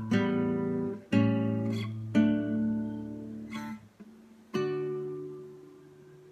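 Strummed acoustic guitar chords, played slowly and ending the piece: the last chord is struck about four and a half seconds in and left to ring out and fade.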